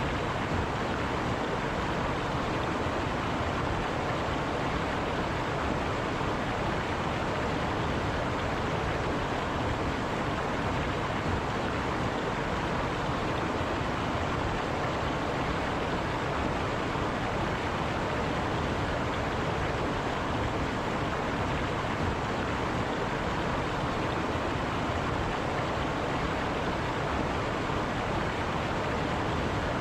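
River water rushing and splashing over rocks, a steady, unbroken rush.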